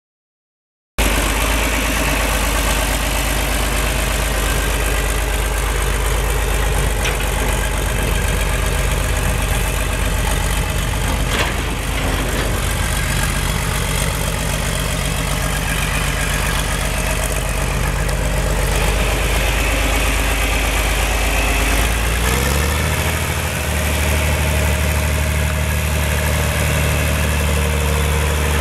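The 1968 John Deere 4020 tractor's six-cylinder diesel engine starts to be heard about a second in and runs steadily as the tractor drives. About three-quarters of the way through, the engine speeds up and its pitch steps higher.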